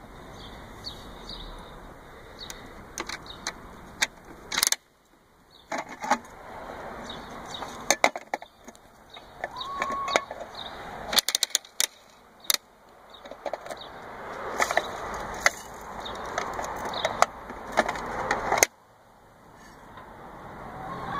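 Clicking and rattling from a bulk feed dispenser being cranked and dried mealworms dropping into a blue enamel mug, with a few sharp, loud clicks. The sound cuts out briefly three times.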